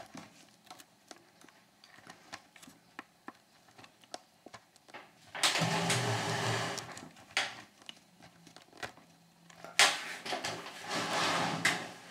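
Singer 66 treadle sewing machine stitching in two short runs, one about halfway through and one near the end, with scattered clicks before and between them.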